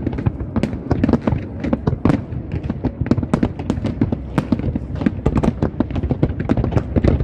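Fireworks display: aerial shells bursting in rapid, overlapping bangs, several a second, over a continuous low rumble.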